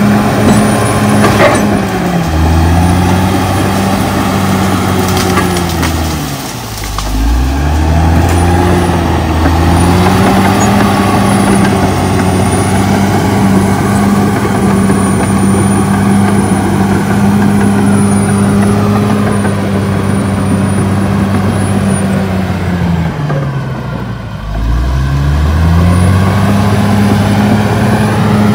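Caterpillar D6R XL bulldozer's diesel engine running hard while it pushes earth and brush. Its revs drop sharply and climb back twice, about seven seconds in and again near the end.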